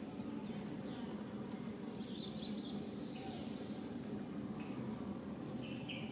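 Steady low insect buzz, with a few short high chirps scattered through.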